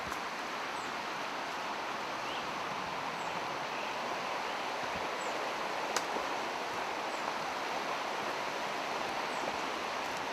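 Steady rushing of river rapids, an even wash of water noise. A few faint short high chirps come every couple of seconds, and there is a single sharp click about six seconds in.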